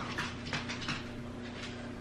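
Faint, light handling noises of an eyeshadow palette being moved and held up: a few soft clicks and rustles over a steady low hum.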